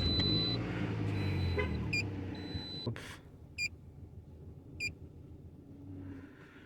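Toyota RAV4's 2.4-litre four-cylinder engine starting and running for about three seconds, with a steady high electronic tone over it; it is misfiring on cylinder 4 from a failed ignition coil pack. After that it goes quieter, with a few short electronic beeps.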